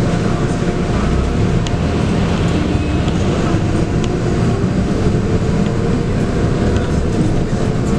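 Inside a moving Scania K280UB bus: its 9.3-litre five-cylinder diesel runs steadily under road and tyre noise, with a few faint clicks.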